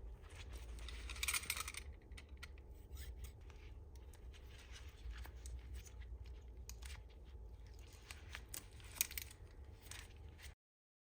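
Small tools and plastic packaging being handled: irregular scrapes, rustles and sharp clicks over a low steady hum. There is a dense burst of scraping about a second in and a single sharp click near the end, and then the sound cuts off suddenly.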